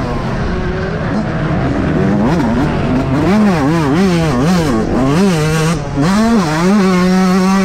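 Yamaha YZ125 two-stroke single-cylinder motocross engine, heard on board, revving up and dropping back again and again as the throttle is worked and gears change, then held steady at high revs near the end.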